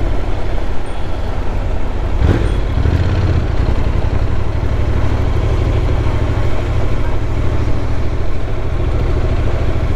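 Honda NC750X's parallel-twin engine running at low speed over cobblestones, with a steady low rumble and rapid flutter from the tyres on the cobbles. There is one brief knock a little over two seconds in.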